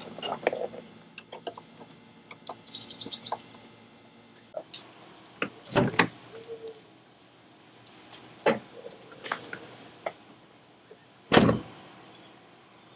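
Light clicks of hardware being worked at the start, then a 2014 Jeep Wrangler Unlimited's front door being handled: a pair of knocks around the middle, two more a few seconds later, and the door shut firmly about a second and a half before the end, the loudest sound.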